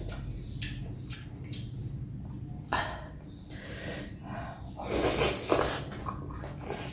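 A person slurping and chewing rice vermicelli noodles from a bowl of broth, in short noisy bursts. There is a sharp slurp about three seconds in and louder, longer slurps around five seconds in.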